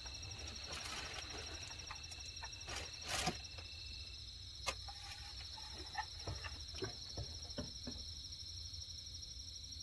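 Steady high-pitched insect chorus, a cricket-like trilling, with a second thinner trill that stops about four seconds in. Scattered small clicks and ticks and a low rumble sound underneath.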